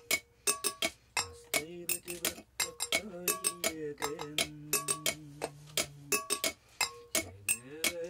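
A man singing a slow song in a low voice, holding long notes that slide between pitches. A spoon clinks against a metal can again and again, several times a second, beneath the singing.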